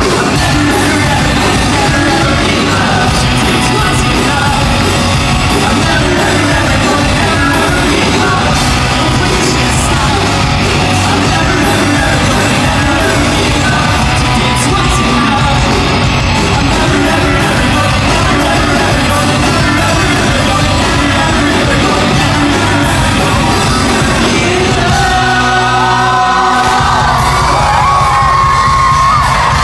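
Live rock band playing loud, with electric guitar, bass guitar, drums and singing. About 25 seconds in, the bass and drums drop out for a couple of seconds while the voice carries on, then the full band comes back in.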